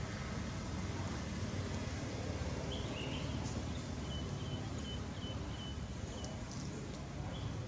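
Outdoor ambience with a steady low background noise. A small bird chirps a couple of short notes about three seconds in, then gives a quick run of repeated peeps, about four a second, and one more chirp near the end.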